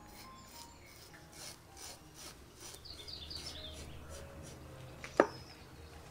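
Kitchen knife scraping scales off a whole raw fish on a banana leaf, in quick repeated strokes about two to three a second. One sharp knock about five seconds in is the loudest sound.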